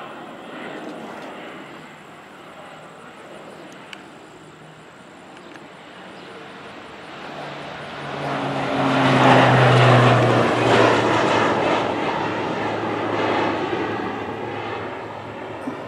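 Crop-duster airplane making a low pass: its engine and propeller sound swells to its loudest about two-thirds of the way in, the pitch dropping as it goes by, then fades.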